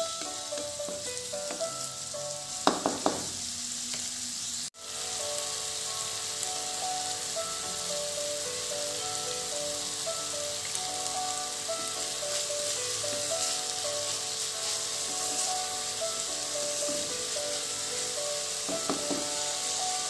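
Chopped onions, green chillies and curry leaves sizzling in hot oil in an iron kadai, frying toward golden brown, stirred with a wooden spatula that knocks against the pan a few times. After a brief break about five seconds in, soft background music with a light plucked melody plays under the sizzle.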